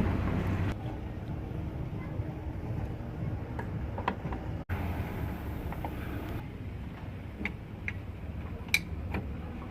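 Scattered light metallic clicks and ticks of gearbox parts and tools being fitted on a Honda Activa 110 scooter, over a steady low background rumble.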